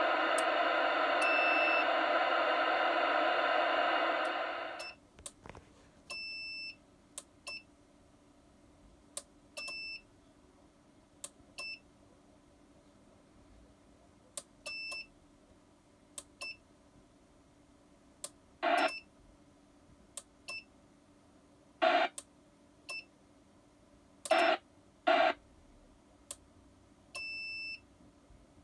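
Radio receiver audio from a Yaesu FT-847 transceiver: about five seconds of loud hiss that cuts off suddenly. A string of short, high electronic beeps follows, some brief and some about half a second long, broken by four short bursts of hiss near the end.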